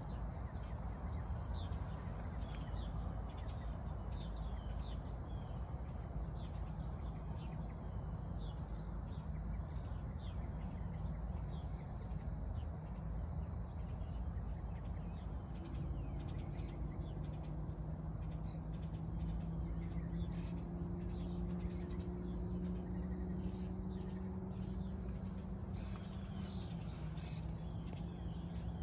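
Insects trilling: a steady high-pitched drone, with a faster pulsing trill above it during the first half, over a low rumble. A low steady hum comes in about halfway through.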